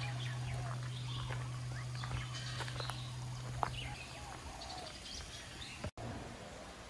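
Birds chirping in a garden, over the low hum of a large temple bell that has just been rung, fading away over the first few seconds.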